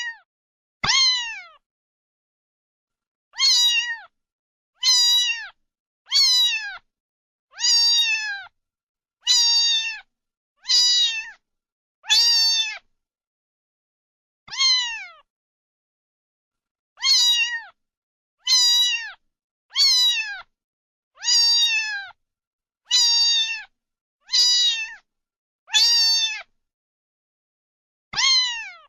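Kitten meowing over and over in short, high-pitched calls, each falling in pitch at the end. The calls come about every second and a half, with a few longer pauses between them.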